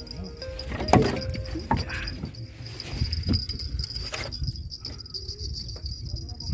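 Steady high-pitched drone of insects such as crickets over a low rumble, broken by a few sharp knocks, the loudest about a second in.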